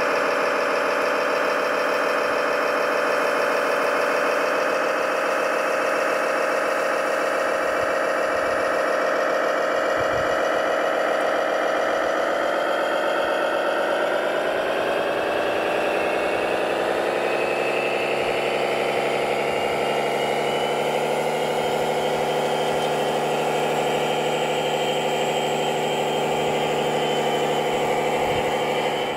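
Engine-like drone of remote-controlled construction machinery running steadily, shifting in pitch about halfway through.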